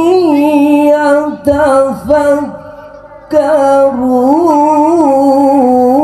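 A reciter's voice in melodic Quran recitation (qiroat), drawing out a long ornamented vowel with a wavering pitch. The voice sounds nasal from a heavy cold. About halfway through it falls quiet for under a second, then takes up the held note again.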